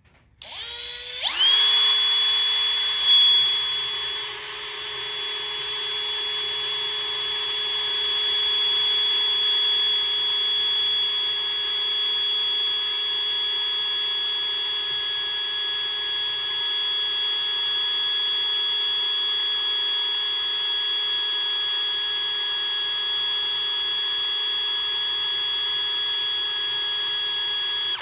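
Electric drill spinning up and boring into a seized, cut-off bolt in an aluminium car subframe. It runs at a steady, even whine, slowly enlarging the hole until the bolt turns. The drill starts about a second in and stops at the very end.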